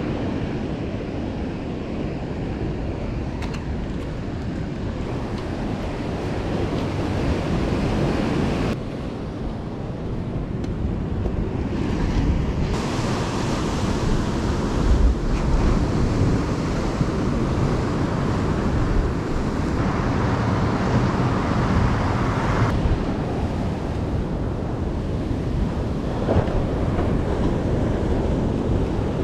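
Ocean surf breaking and washing against a rocky shore, with wind buffeting the microphone. The sound shifts abruptly a few times.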